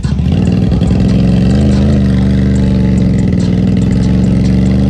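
ATV engine held at steady high revs while the quad sits bogged down in deep muddy water, its wheels spinning and the machine barely moving. The pitch wavers briefly about a second and a half in, then holds steady.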